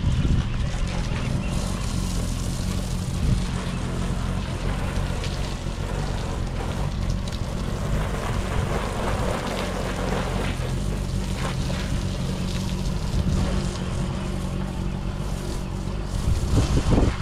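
Hose spraying a salt-neutralising rinse solution over a boat, a hissing spray that swells and eases as it moves, with an engine running steadily underneath as a low drone.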